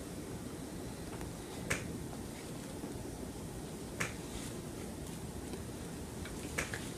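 Sharp crinkling clicks of a plastic bag as a cat licks and mouths it, a few single snaps a couple of seconds apart over a low steady hiss.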